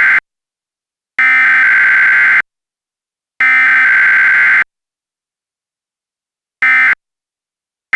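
Emergency Alert System SAME digital header tones: the end of one data burst, then two more bursts of a little over a second each, about a second apart. After a gap of about two seconds, short end-of-message bursts begin near the end.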